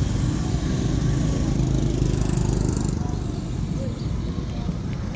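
Steady low rumble of outdoor background noise, with faint distant voices.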